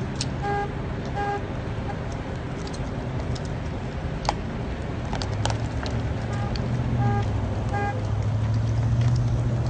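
Vehicle engine idling with a steady low hum, and short horn beeps: two about half a second apart near the start, then three more about two-thirds of the way through.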